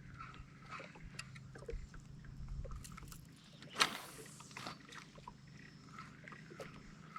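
Water lapping quietly against a wooden canoe, with one brief sharp splash a little past the middle.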